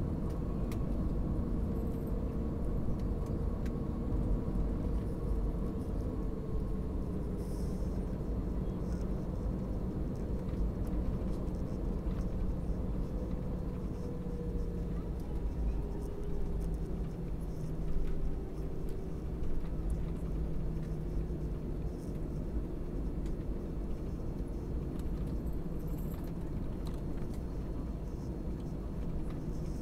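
Steady low rumble of an Airbus A321's engines at low thrust, heard inside the cabin while the airliner taxis. A couple of engine tones run through it and slowly drop in pitch.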